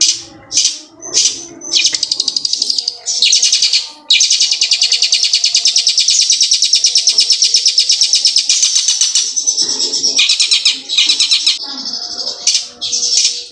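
Caged long-tailed shrike (cendet) singing loudly in a mimicked ciblek gunung song. It opens with short, sharp chirps, breaks about four seconds in into a long, fast, unbroken trill of about five seconds, then goes back to short phrases.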